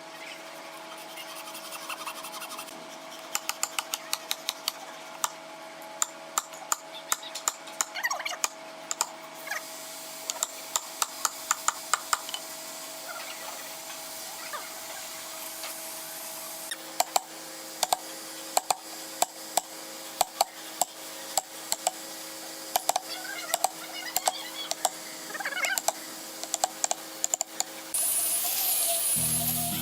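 Rapid series of sharp knocks in two runs, about two to three a second, over a faint steady hum, with a short burst of hiss near the end.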